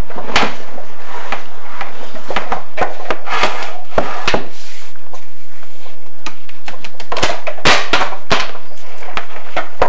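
Irregular knocks, clicks and scraping as a chimney inspection camera on its rod is fed down a clay-tile flue, bumping against the tile walls. The knocks come in uneven clusters, densest about three-quarters of the way through.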